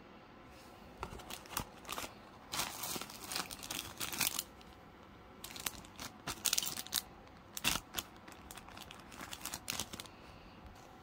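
Clear plastic packaging bags crinkling in irregular bursts as they are handled, loudest about two to four seconds in and again around six to eight seconds in.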